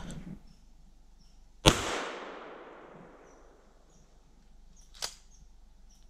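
A single shotgun shot about two seconds in, its report echoing away through the woods over about a second and a half. A short faint click comes near the end.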